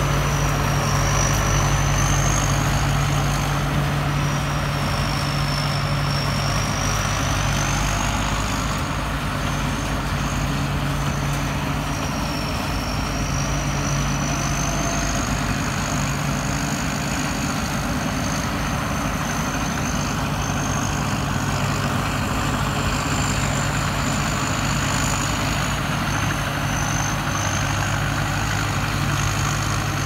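Sit Charoen rice combine harvester's diesel engine running steadily under load as it cuts and threshes rice, with a high whine that wavers slightly in pitch over the low engine hum.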